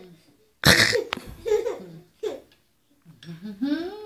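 A young child's laughter and vocalising. About a second in there is a sudden loud breathy burst, then a few short giggling syllables. Near the end comes a longer high-pitched call that rises and then falls.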